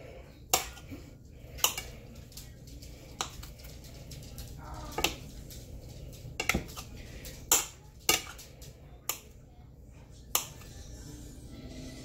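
Knife blade clicking against a ceramic plate as a block of cheese is cut into cubes: about nine sharp, irregularly spaced clicks.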